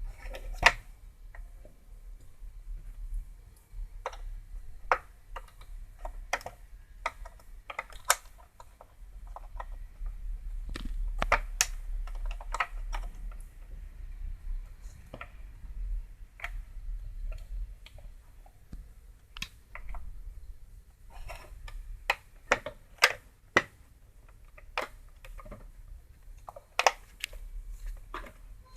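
Irregular small clicks and taps of hand tools and small radio parts being handled on a workbench, over a low steady hum.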